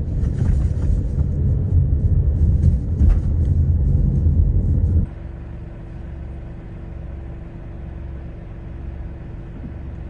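Car road noise from inside the cabin: a loud, low rumble while driving. About five seconds in it drops suddenly to a quieter steady engine hum with one faint held tone.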